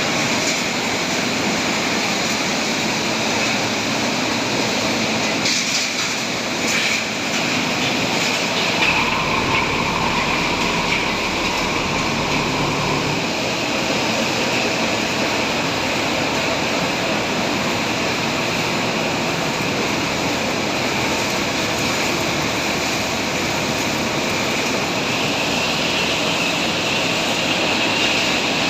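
Twin hammer mill running steadily with a loud, even mechanical noise. A few brief knocks come about six to seven seconds in.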